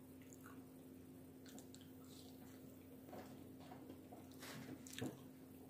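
Faint chewing and small mouth sounds of a person eating a fried chicken nugget, with a few louder wet clicks about three to five seconds in. A faint steady hum sits underneath.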